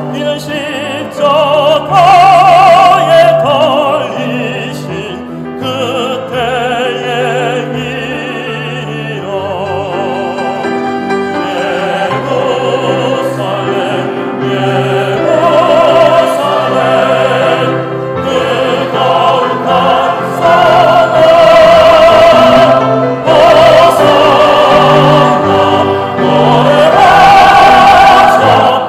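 A male solo voice singing a sacred song in an operatic style with vibrato, over a string orchestra accompaniment. The full mixed choir joins in near the end and the music grows louder.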